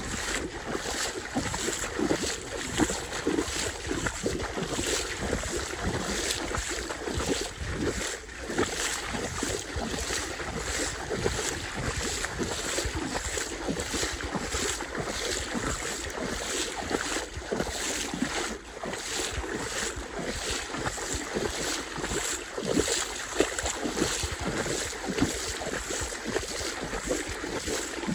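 Wind buffeting the microphone over small waves lapping: a steady rush with a low rumble and frequent soft splashy pulses.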